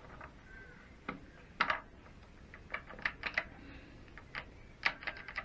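Triumph Bonneville gearbox mainshaft being slid by hand through the gear cluster, its steel gears and splines clicking and clinking in several short runs of light clicks.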